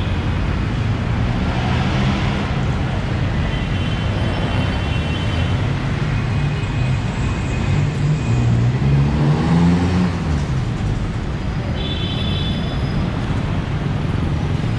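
Busy street traffic: vehicle engines running close by in a steady rumble, with one engine revving up and back down about nine seconds in.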